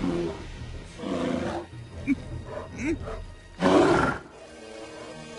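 A bear growling and roaring in several separate bursts, the loudest about three and a half seconds in.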